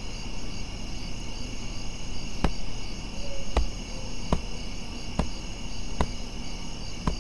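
Steady chorus of crickets chirping at night, with a pulsing high trill. Over it come slow footsteps, about one step a second, from a man walking on a hard floor.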